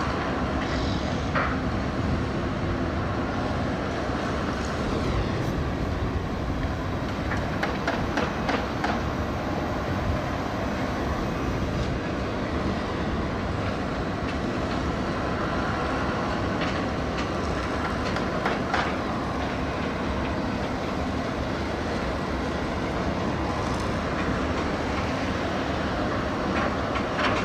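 Steady rumbling outdoor noise of an urban site with a few faint clanks now and then.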